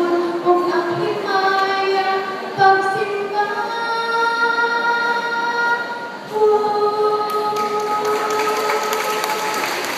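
A woman singing a solo into a microphone, holding long, steady notes. Over the last couple of seconds a rushing crowd noise rises under her voice.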